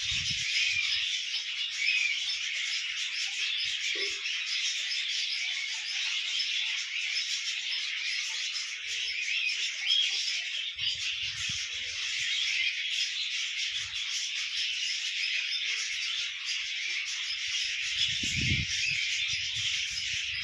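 Many birds chirping and chattering together in a dense, steady high-pitched chorus, with a few soft low thumps underneath.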